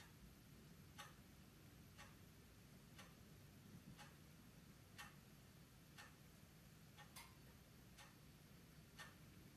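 Faint, even ticking about once a second, as of a clock, over a low steady hum of room tone.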